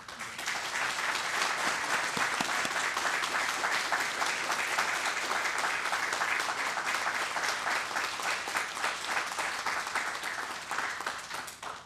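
Audience applauding, starting all at once, holding steady, and dying away just before the end.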